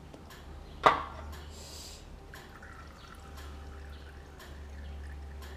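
Hot engine oil running out of a motorcycle's sump drain hole and dripping into a metal basin. A single sharp metallic clink comes about a second in.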